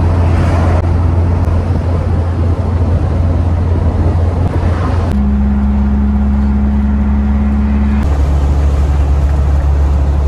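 Volkswagen Kombi van driving at road speed, heard from inside the cab with a window open: a steady low engine drone under a rush of wind and road noise. The drone's pitch changes abruptly twice, about five and eight seconds in.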